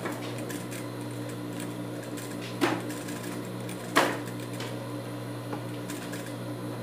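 Industrial sewing machine's motor humming steadily while felt is stitched, with two sharp clicks in the middle.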